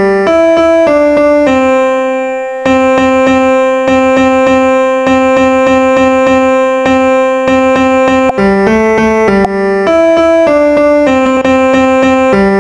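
Background music: a melody of short stepping notes, with one long held note from about a second and a half in until about eight seconds in, then the stepping notes return.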